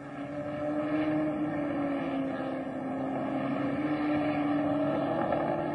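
Racing car engine running at high revs: one steady note that grows louder about a second in, rises slightly in pitch, dips, then rises again.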